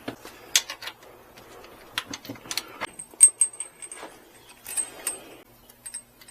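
Small metal parts clinking and rattling in irregular taps as they are handled, a few with a brief high metallic ring.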